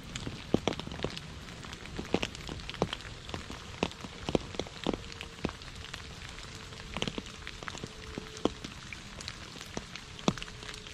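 Steady rain falling on a puddle and wet leaves: an even hiss with irregular sharp plinks and drips of single drops hitting the water.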